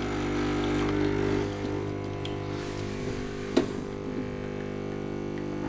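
Delonghi Dedica's vibratory pump humming steadily while pulling a shot, its pump power held back by a light dimmer on the pump circuit. The hum drops a little about a second and a half in, as the dimmer is turned from its maximum toward its minimum setting. A single sharp click about three and a half seconds in.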